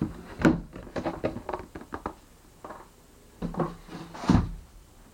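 Packaging rustling and knocking as a motorcycle helmet in its white bag is lifted out of its box, with two louder knocks, about half a second in and about four seconds in.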